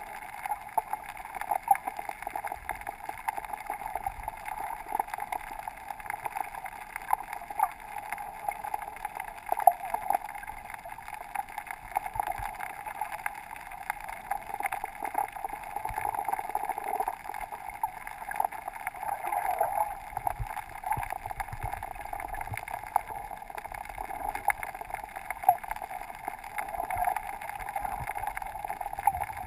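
Underwater ambience heard through a GoPro's sealed waterproof housing: a steady, muffled water hiss with many scattered clicks and a few low knocks.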